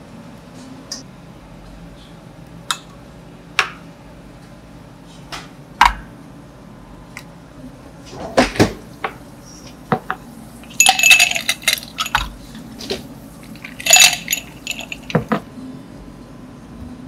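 A few sharp knocks of a steel cup and glasses being set down on a counter, then ice cubes clattering and clinking into two tall glasses in two dense bursts, the loudest sounds here.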